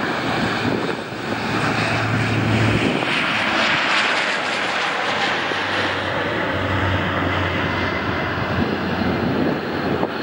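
Rolls-Royce Trent 700 jet engines of an Airbus A330-243 roaring steadily as the airliner rolls down the runway after landing. The roar swells to its loudest about four seconds in, then eases a little as the aircraft moves away.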